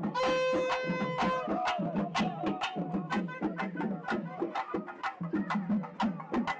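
Background music with a fast percussion beat; a held note sounds over it for the first second and a half.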